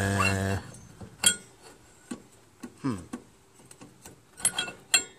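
Scattered light metallic clicks and clinks as a removed crankshaft pulley and loose steel parts are handled under a garden tractor, opening with a short hummed voice sound.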